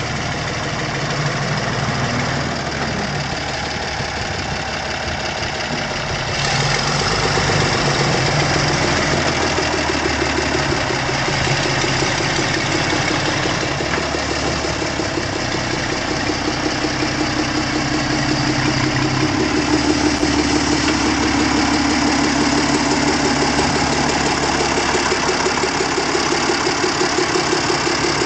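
Deutz D8006 four-wheel-drive tractor's air-cooled six-cylinder diesel running as the tractor drives slowly around. It grows louder about six seconds in as the tractor comes closer, and its pitch shifts about two thirds of the way through.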